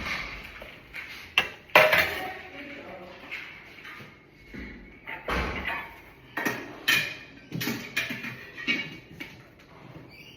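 Kitchen clatter: a run of sharp knocks and bangs, like cupboard doors and dishes being handled, with indistinct voices.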